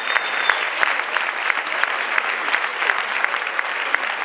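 Audience applauding, dense steady clapping from many hands, with a thin steady high tone that stops about half a second in.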